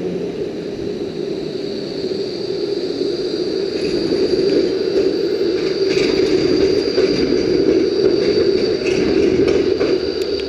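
E-class low-floor electric tram running on its rails as it pulls away: a steady rolling rumble, with a thin high whine joining about four seconds in and a few light clicks near the end.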